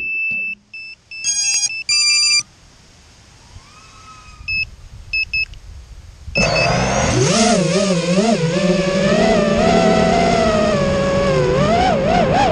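FPV racing drone downed in leaf litter: a few short electronic beeps over a quiet background, then about six seconds in its brushless motors spool up into a loud whine whose pitch wavers up and down as it lifts off and flies again.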